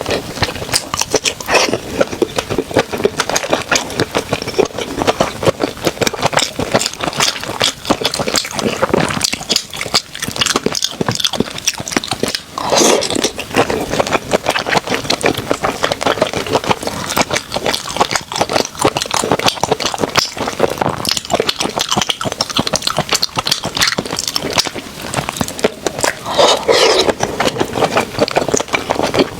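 Close-miked eating sounds: continuous wet chewing, crunching and mouth clicks, with two louder fuller mouth sounds about 13 seconds in and near the end.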